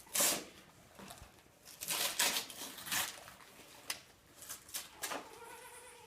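Wrapping paper rustling and tearing in short, irregular crackly bursts.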